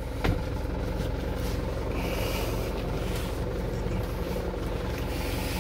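Mitsubishi Colt Diesel truck's 4,000 cc diesel engine idling steadily, heard inside the cab, with a single click near the start.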